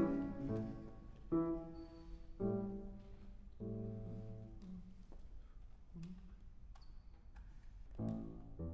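Steinway grand piano played in slow, sparse chords, each struck and left to ring out. They come about once a second at first, then with longer gaps, and the opening chord is the loudest.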